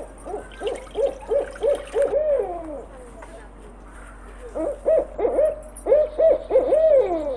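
A bird calling in two bouts of short, rising-and-falling hooting notes, about three a second. Each bout ends in a longer note that falls away, and the second bout starts about four and a half seconds in.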